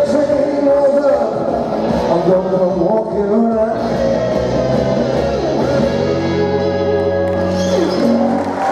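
Live blues guitar playing the closing bars of a song, ending on a long held final chord just before the end.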